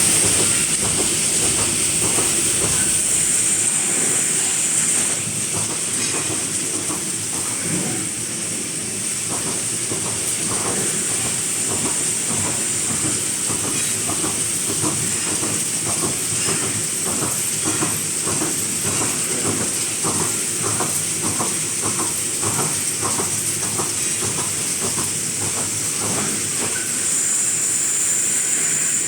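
Automatic wire mesh welding machine running: a steady high hiss with short, regular clacks about twice a second as it works through its welding strokes.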